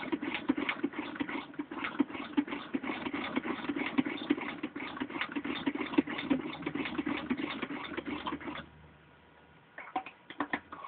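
1920 Singer 127 vibrating-shuttle sewing machine head, its handwheel spun by hand, stitching through six layers of denim: a quick, steady rhythmic clatter of the needle and shuttle mechanism. It stops abruptly about eight and a half seconds in, followed by a few scattered clicks.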